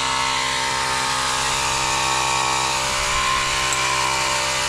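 A motor running at a steady, unchanging speed, with a strong hiss over it.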